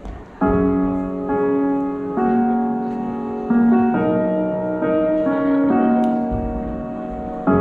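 Piano playing slow, sustained chords that start about half a second in, with the chord changing every second or two: the accompaniment to a wedding song before the singing begins.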